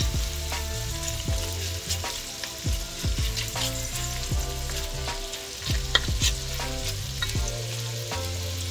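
Sliced smoked sausage sizzling in hot olive oil in an enamelled pot, stirred with a wooden spoon that scrapes and clacks against the pot again and again. The sharpest clack comes about six seconds in.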